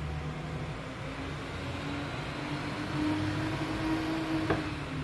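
A steady mechanical hum with a faint whine that rises slightly in pitch. One light click comes about four and a half seconds in.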